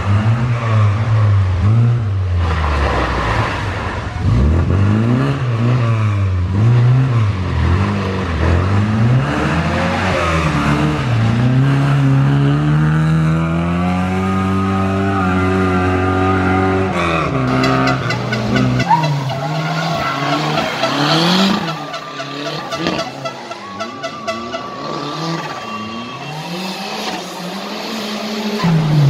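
Historic rally cars at full effort on a gravel stage: engines revving hard and dropping back through gear changes, with one long climb in pitch under full throttle about halfway through. Tyres scrabble and slide on the loose surface. The sound fades for a while, then swells again near the end as another car approaches.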